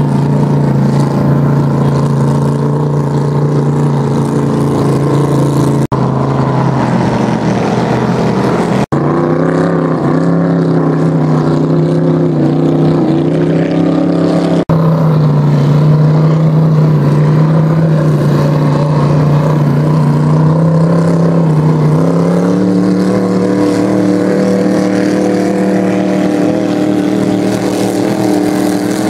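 Open-exhaust big-block engines of vintage racing hydroplanes running hard at speed: a loud, steady drone that wavers in pitch for a few seconds and steps up in pitch near the end, broken by three brief dropouts.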